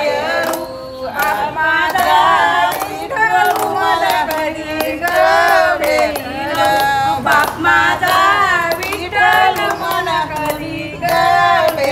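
Group of women singing a traditional Agri-Koli Holi folk song together in call-like verses, clapping their hands along in rhythm.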